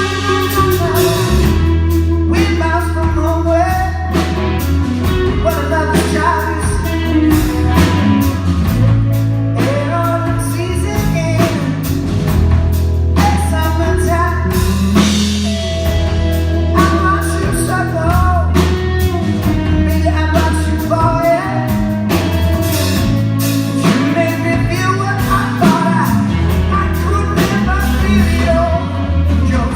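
Rock band playing live: drum kit, bass and electric guitar under a lead vocal singing the melody.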